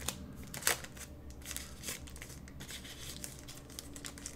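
Packaging being handled and opened by hand: light rustling and crinkling with a few sharper crackles, the loudest less than a second in.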